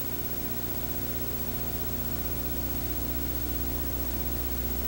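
Steady hiss with a low electrical hum from the recording's sound system or audio chain, with no speech.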